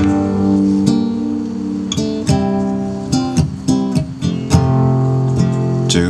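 Acoustic guitar played solo: plucked and strummed notes ringing over a held low bass note, the instrumental opening of a song.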